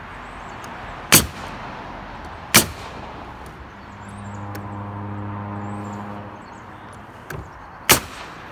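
Pneumatic nail gun driving nails through OSB roof sheathing: three sharp shots, about a second, two and a half seconds and eight seconds in, with a fainter click just before the last. A low hum swells and fades in the middle.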